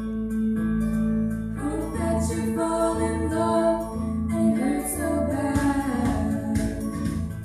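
Choir singing on stage with instrumental accompaniment, the voices swelling about a second and a half in.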